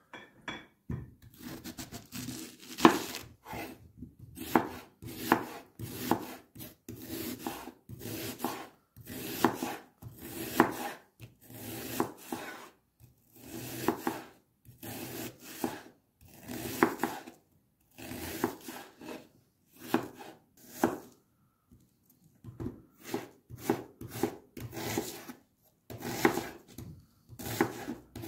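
Kitchen knife slicing an onion on a wooden cutting board: a steady run of cutting strokes about once a second, each a short crunching scrape ending in a knock on the board, with a brief pause about three-quarters of the way through.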